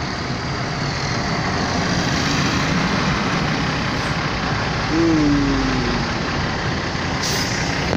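Steady road and engine noise heard from inside a slowly moving vehicle. About five seconds in there is a brief falling tone.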